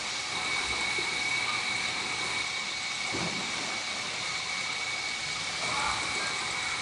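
Steady rushing of water from a rock waterfall cascading into a swimming pool, with a steady high whine over it.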